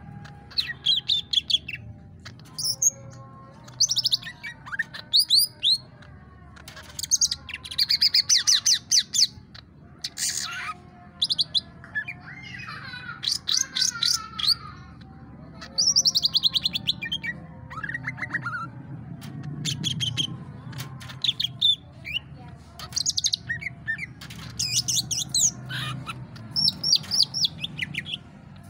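Male green leafbird (cucak ijo) singing: phrase after phrase of quick, high chirps and whistled trills with short pauses between, and a lower warbling chatter near the middle.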